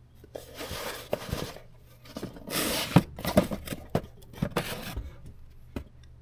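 Cardboard boxes being pulled off a stack, sliding and scraping against each other with several light knocks as they bump.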